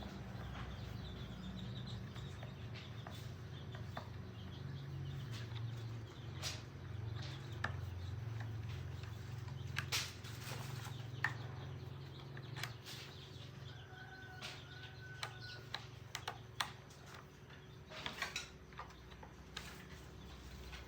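Scattered light clicks and knocks of hand work on a chainsaw that is not running, over a steady low hum. A couple of short chirps sound about two thirds of the way in.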